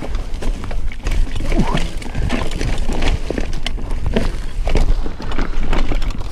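Mountain bike clattering and rattling over a rough trail, with many short knocks, over a steady low rumble of wind buffeting the camera microphone.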